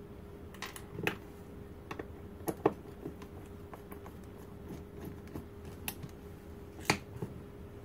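Small metal parts of a mortise lock cartridge being handled: a screw and washer set in place, with scattered irregular clicks and light taps of metal on metal, over a faint steady hum.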